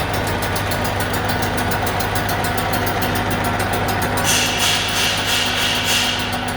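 Metal lathe turning a screw pump shaft: the machine runs with a steady hum, and a higher hiss of cutting joins about four seconds in for roughly two seconds.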